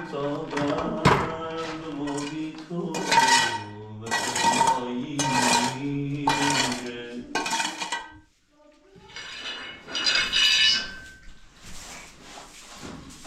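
Pots, pans and dishes clattering and scraping while a kitchen is being washed, with repeated noisy bursts about once a second for a few seconds, a brief pause, then more clatter.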